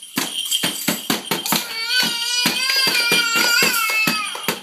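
Toy drum beaten quickly and unevenly with sticks, about four or five hits a second. From about two seconds in, a child's high, wavering voice is held over the hits for a couple of seconds.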